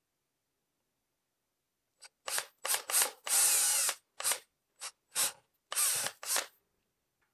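Cordless drill boring into drywall with no stud behind it, run in about ten short trigger bursts starting about two seconds in, the longest near the middle.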